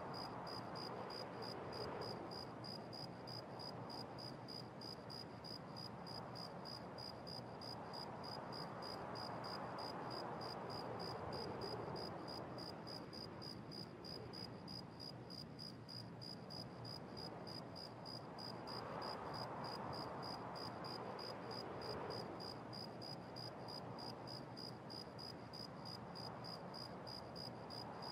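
Fast, even high-pitched chirping, about three pulses a second, over a soft hiss that slowly swells and fades.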